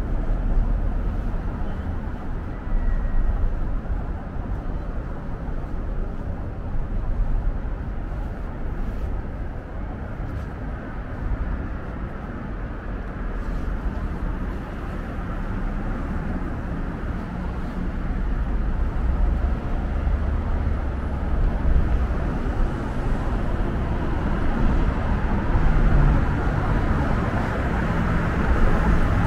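Steady road traffic noise of a city street: a continuous low rumble of car engines and tyres, somewhat louder in the last third.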